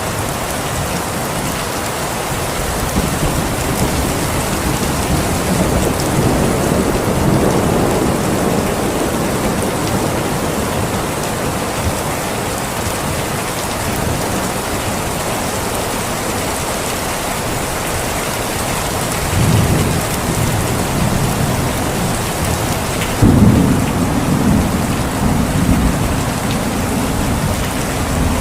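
Steady heavy rain with rolls of distant thunder, one rumble swelling about two-thirds of the way through and a stronger one a few seconds later.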